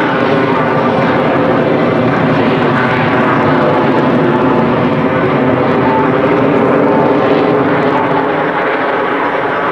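Four US Navy Blue Angels F/A-18 Hornets flying over in tight diamond formation, their GE F404 jet engines making loud, steady jet noise.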